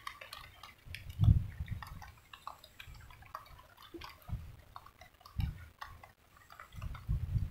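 Irregular light ticks and drips of water around a small wooden boat, with a few dull low thumps, the strongest about a second in.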